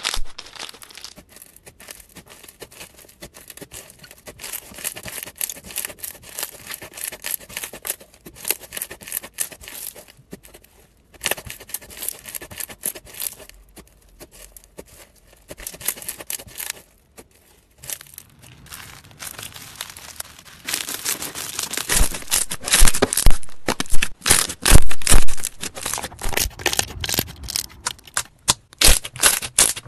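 Slime being squeezed, pressed and poked by hand: dense runs of fine crackling and clicking, turning into louder, deeper popping and squelching clicks about two-thirds of the way in as fingers press into a glossy slime.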